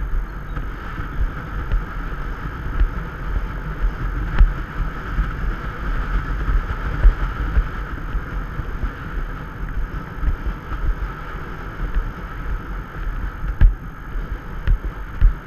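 Wind rushing over a rider-mounted camera's microphone, with irregular dull thuds of a horse's hooves on a sandy track as the horse moves at speed.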